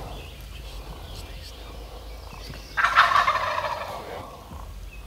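Wild turkey gobbler gobbling once at close range: a single loud rattling gobble about halfway through, lasting a little over a second.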